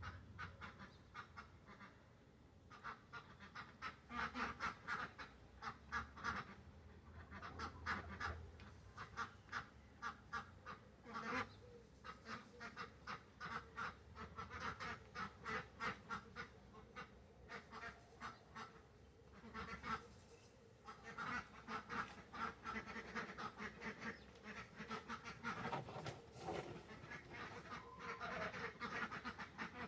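A pet bird calling in long bouts of rapid, harsh, repeated notes, with short pauses about a third and two thirds of the way through.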